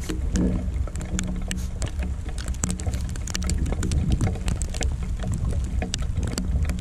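Steady low rumble with many small sharp ticks scattered throughout, as of falling sleet and snow striking the camera.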